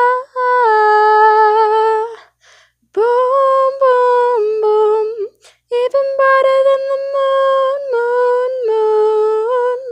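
A female voice singing unaccompanied, holding three long notes without clear words, each with small slides in pitch and a short breath gap between them.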